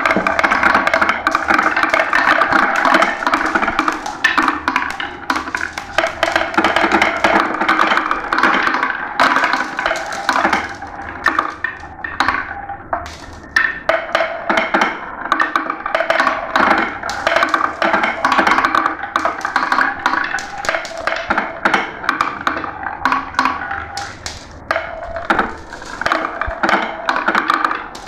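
Glass marbles rolling and clattering down a marble run: a dense, continuous stream of clicks and taps, with rolling hum underneath.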